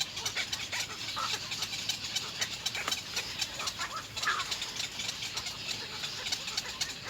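Little egret chicks begging for food in the nest: a fast, continuous clicking chatter with a few short squeaks mixed in.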